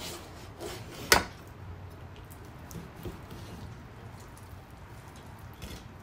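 Kitchen knife sawing and scraping through raw chicken thigh on a white plastic cutting board, the blade not cutting the skin cleanly. Soft scraping strokes with a few sharp knocks of the blade on the board, the loudest about a second in.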